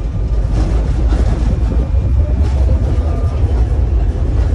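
Tram running along the street, heard from inside the passenger car: a steady low rumble of the car on its rails, growing a little louder in the first second.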